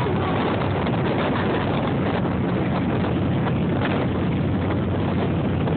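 A steady stream of cruiser motorcycles riding past close by, their engines running together in a continuous low drone, with wind buffeting the microphone.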